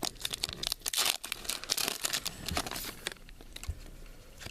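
Trading-card packaging and cards being handled: a run of crinkling and rustling, busiest in the first three seconds and thinning out toward the end.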